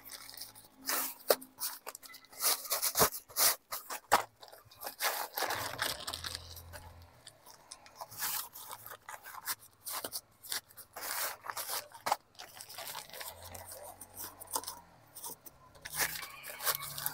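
Nylon tent fabric rustling and crinkling as a rolled tent is pushed into its stuff sack, with irregular scrapes and crunches of the bag against concrete.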